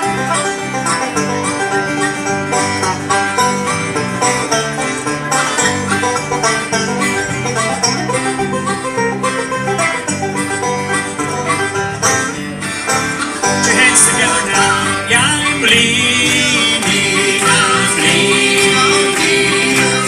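Live bluegrass-gospel band playing an instrumental passage: banjo picking over acoustic and electric guitars and a bass guitar, getting louder about two-thirds of the way in.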